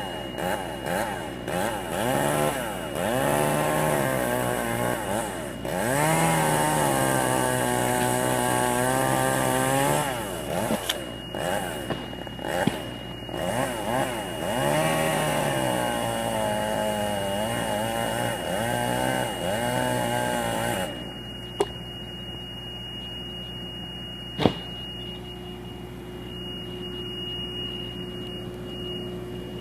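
Chainsaw cutting a beetle-killed pine, its engine revving up and down over and over, then shutting off about two-thirds of the way through. A quieter steady hum remains, with two sharp knocks.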